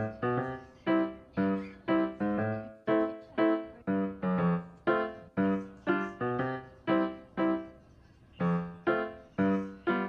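Background piano music: a gentle melody of single struck notes at about two a second, each fading before the next, with a short pause about eight seconds in.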